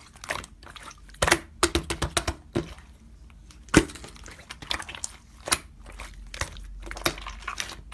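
Pink slime squeezed and kneaded by hand close to the microphone, giving an irregular run of short clicks and pops. The sharpest pop comes near four seconds in.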